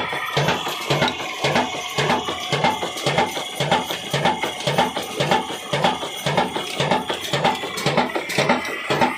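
Old single-cylinder 22 HP Diamond diesel engine running steadily, with an even exhaust beat of about two and a half thumps a second and a mechanical clatter on each stroke.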